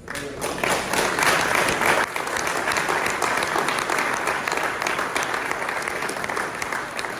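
Crowd applauding, starting suddenly and loudest in the first couple of seconds before easing off slightly.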